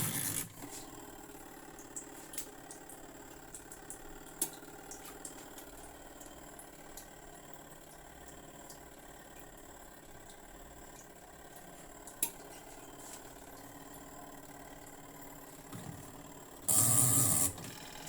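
A small motor's steady hum with scattered light clicks, and a loud burst of noise about a second long near the end.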